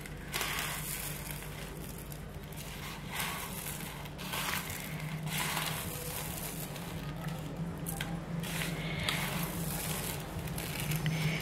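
Dry homemade vermicelli being crushed into small pieces by hand in a plate: a light crackle and rustle of snapping strands, coming in irregular squeezes about once a second.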